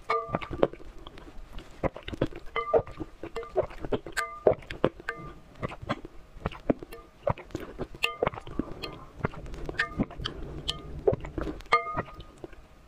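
Close-up eating sounds of a person slurping raw egg yolks off a metal spoon: many short, irregular wet smacks and clicks. Several brief pitched blips recur among them.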